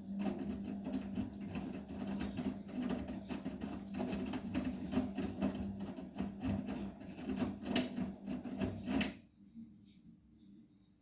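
Vestel CMI 97302 washing machine on its 70 °C cotton programme, turning its drum: a steady motor hum with dense clattering of the tumbling load. It stops abruptly about nine seconds in as the drum pauses between turns of the wash cycle.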